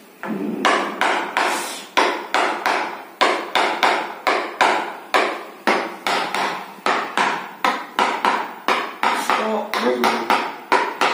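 A chiropractor's rhythmic percussive strikes on the patient's body: a steady run of sharp blows, about three a second, kept up without a break.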